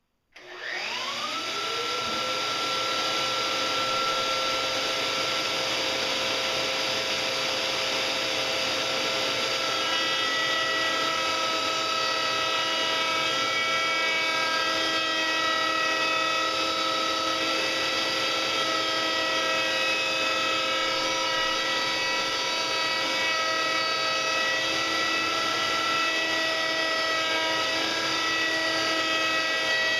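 Router in a Festool CMS router table switched on, its motor winding up over about a second to a steady high whine, running with a beading bit fitted.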